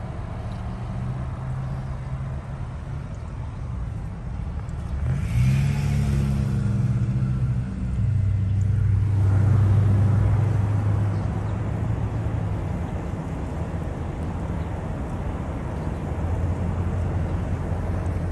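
Car engine and road noise heard from inside the cabin: a steady low drone whose pitch rises briefly about five seconds in, then settles into a stronger steady hum.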